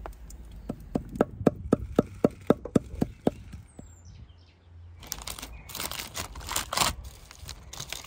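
A quick run of about a dozen sharp knocks, about four a second, followed by a couple of seconds of loud noise, with a short bird chirp in between.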